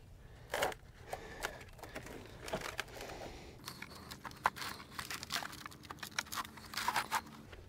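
Light scrapes, taps and crinkles as wooden frame boards are slid and nudged into place around a plexiglass sheet on concrete, in irregular short touches.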